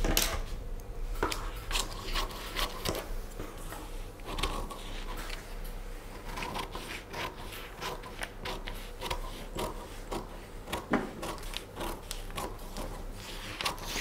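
Paper dress pattern being handled and drawn on at a work table: a stream of small, irregular scratches, rustles and light taps.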